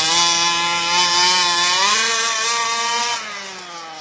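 Remote-controlled toy Ferrari racing along, giving a loud, realistic car-engine note. The pitch climbs, holds steady for about three seconds, then drops away as it slows.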